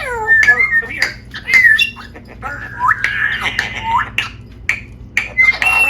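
Pet parrot vocalizing: a rapid string of varied calls, sliding whistles and short clicks with a harsher squawk in the middle.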